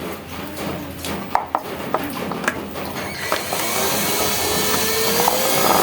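A small electric motor running, with scattered clicks and scraping; its pitch rises slowly near the end.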